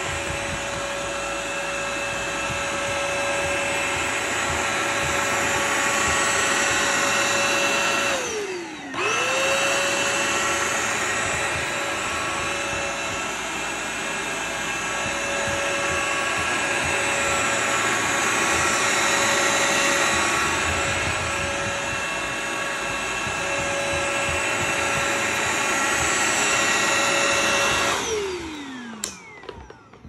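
Bissell CrossWave Pet Premier wet-dry vacuum running steadily with a high motor whine as it cleans a hardwood floor. About eight seconds in the motor briefly winds down and spins back up, and about two seconds before the end it is switched off and winds down.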